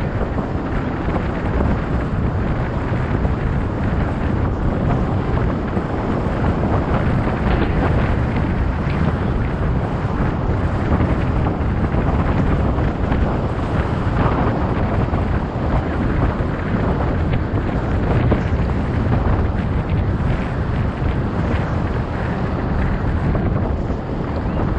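Wind buffeting a GoPro's microphone at cycling speed: a steady, loud rushing noise.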